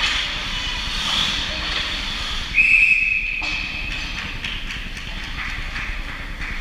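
A referee's whistle blown once, a single shrill blast of about a second, starting about two and a half seconds in, over steady rink noise with scattered clicks.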